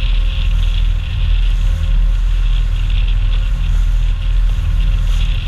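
Motorized outrigger boat (bangka) under way: steady engine drone with a faint constant hum, water rushing past the hull, and wind buffeting the microphone.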